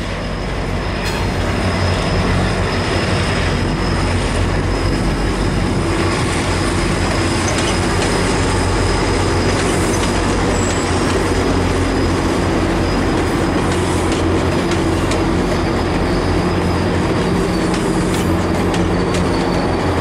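GO Transit diesel locomotive hauling bilevel passenger coaches past, its engine making a steady low drone, growing louder over the first couple of seconds. Wheels click over the rail joints, with a thin high wheel squeal throughout.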